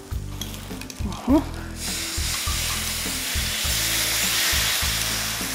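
Milk thickened with dissolved cornstarch poured into a hot electric skillet of sautéed leeks, sizzling as it hits the pan. The sizzle starts about two seconds in and keeps on steadily.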